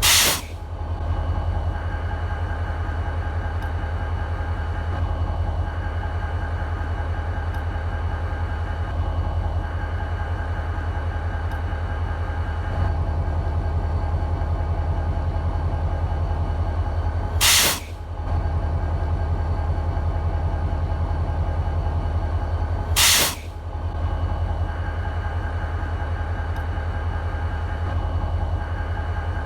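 An EMD SD40-2 diesel locomotive idling, its 16-cylinder 645 two-stroke engine giving a steady low rumble. Three short, loud bursts of hiss break in: one right at the start, then two more about five seconds apart after the halfway mark.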